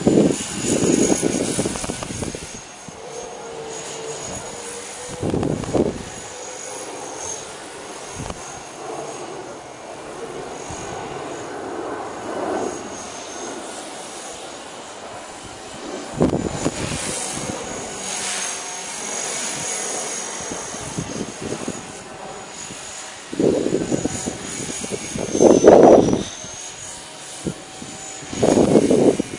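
Blade 300X electric RC helicopter in flight: a steady high-pitched whine from its motor and rotors that wavers slightly in pitch. Gusts of wind buffet the microphone several times, loudest a little before the end.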